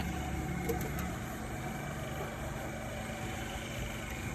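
Toyota Corolla XLi engine idling steadily, the noise the car has been brought in for, with a few faint clicks about a second in.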